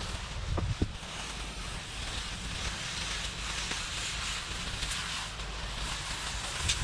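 Steady hiss of a rinse spray of water striking house siding, washing off the soft-wash algae treatment, over a low rumble. Two short knocks come just under a second in.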